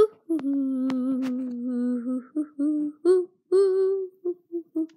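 A person humming a short tune: one long low note held for about two seconds, then a run of short, slightly higher notes. A few sharp clicks come in the first second or so.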